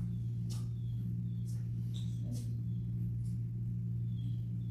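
Room tone: a steady low hum with a few faint ticks.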